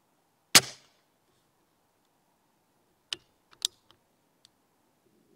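A single sharp air rifle shot that dispatches a rat, then about two and a half seconds later a quick run of about five clicks as the rifle's action is cycled to load the next pellet.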